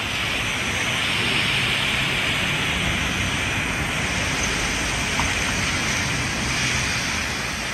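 Steady rush of water from the small Aizome River flowing through its channel.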